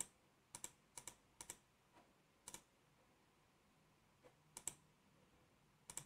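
Faint computer mouse clicks, scattered unevenly, many in quick pairs, with a pause of almost two seconds in the middle.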